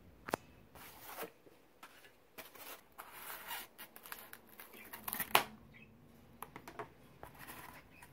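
Small scissors cutting open a styrofoam packing case along its seam, with foam scraping and rustling between snips. The sounds are faint and irregular, with one sharp click a little after five seconds.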